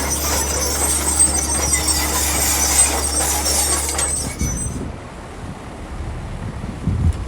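Heavy earthmoving machinery working: a steady low engine drone with high-pitched metallic squealing, giving way about four and a half seconds in to a quieter, lower rumble.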